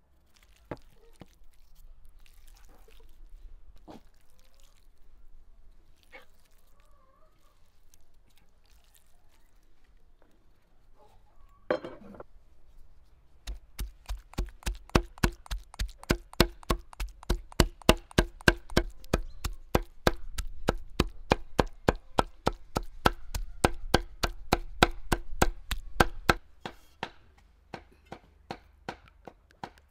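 Large kitchen knife chopping raw beef liver on a thick wooden board. A few light knocks come first, then about halfway in a long run of rapid, even chops at about four a second for some thirteen seconds, which stops near the end.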